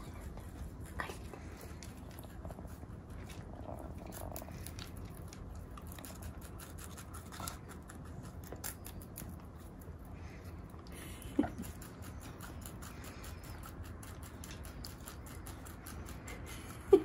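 A corgi and a rabbit gnawing at a raw carrot and its leafy tops: faint crunching and nibbling with many small clicks, and one short louder rising sound about eleven seconds in.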